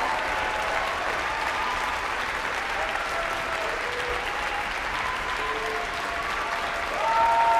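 Audience and orchestra applauding steadily after a performance, with scattered voices calling out over the clapping. The applause swells louder near the end.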